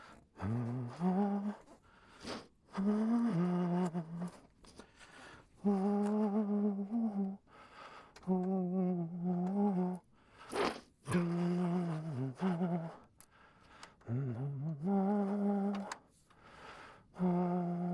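A man humming a tune in short held phrases of one to two seconds, the pitch stepping between a few steady notes, with brief pauses between phrases.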